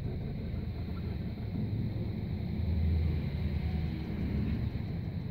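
Low, steady outdoor rumble from a night-time phone recording, with a faint steady high whine above it.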